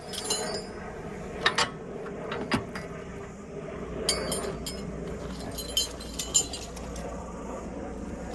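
Several sharp metallic clinks and rattles over a steady low engine hum, which cuts off suddenly at the end.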